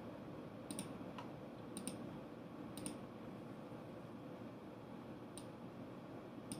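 A handful of sharp computer-mouse clicks at irregular intervals, two in quick succession about two seconds in, over a low steady room hum.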